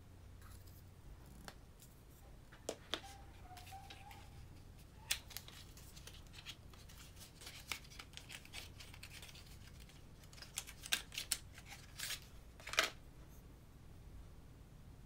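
Scissors snipping and hands handling cosmetic packaging, paperboard boxes and plastic lipstick tubes: scattered sharp clicks and crinkles, with a burst of louder clicks near the end.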